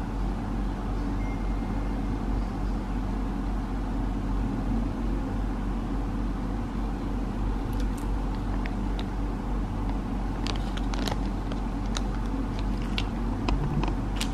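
A steady low hum, with light clicks and crinkles of plastic snack-stick wrappers being handled from about halfway in.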